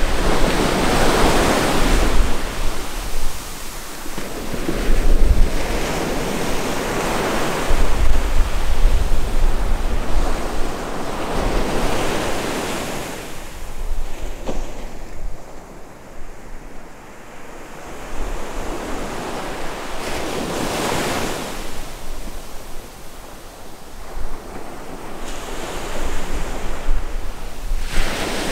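Atlantic surf breaking and washing up the beach in repeated swells every few seconds, with wind buffeting the microphone. The surf dies down for a few seconds midway and builds again near the end.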